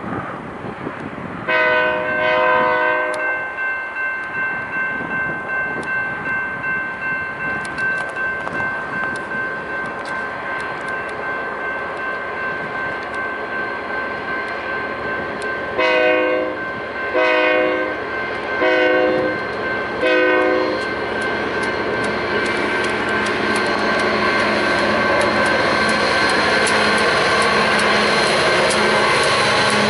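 Union Pacific maintenance-of-way locomotive's multi-chime air horn: one blast about a second and a half in, then four shorter blasts in quick succession around the middle, sounded as the train nears a grade crossing. Under it the rumble of the locomotive and cars grows steadily louder as the train draws level and passes.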